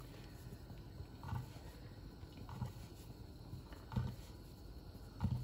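Faint sounds of hands rolling a buttered paratha dough sheet up into a log on a wooden board, with four soft, evenly spaced bumps.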